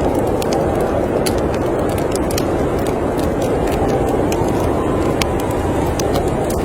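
Steady rushing wind of a snowstorm, with a wood fire crackling over it in scattered sharp pops.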